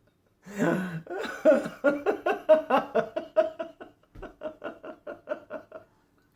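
A person laughing hard in a long run of short, rhythmic 'ha' bursts, with a brief break about four seconds in.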